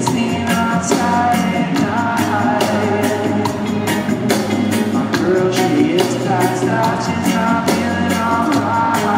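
Live reggae band playing a song: drum kit, bass guitar, electric guitar and congas with a man singing over a steady beat, heard from the audience.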